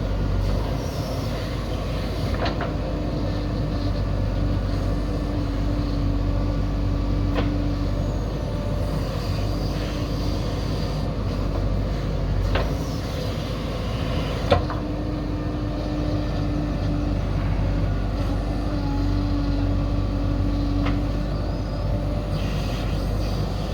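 Diesel engine of heavy earthmoving machinery running steadily. A whine rises and drops out several times, each lasting a couple of seconds, and a few sharp knocks come through, the loudest about two-thirds of the way in.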